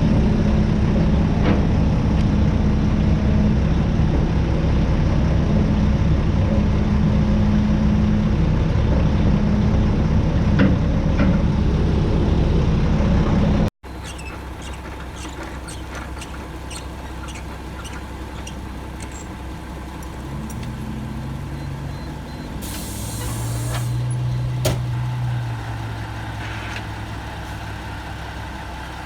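Mack E7 inline-six diesel in a CH612 truck running loud and steady. After an abrupt cut it runs quieter, then builds up for a few seconds near the end before easing off.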